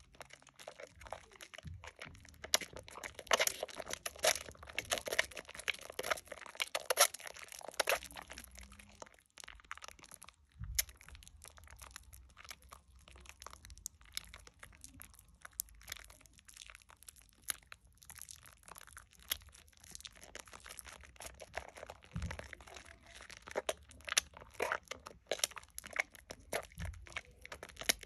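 Wet hands squeezing and rubbing a Dove Shea Butter bar soap into thick foam: a constant run of wet squelches and crackling squishes of lather, busiest early on and again near the end, with a few dull low thumps.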